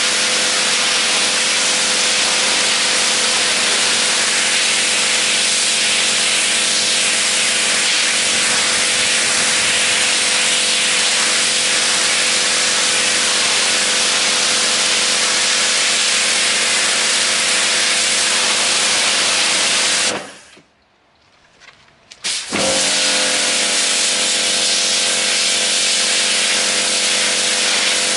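Kärcher K7 Full Control pressure washer running and spraying, a steady motor-pump hum under the hiss of the water jet. About 20 seconds in it shuts off, and about two seconds later it starts up again.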